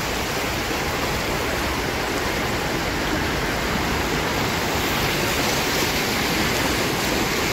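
Fast floodwater from the Jiadhal river's Kangku channel rushing and churning across a paved road: a steady, even rush of water noise.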